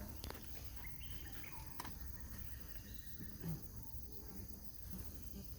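Outdoor ambience: a steady high-pitched insect drone, with a few brief high chirps about one to two seconds in and a low rumble underneath.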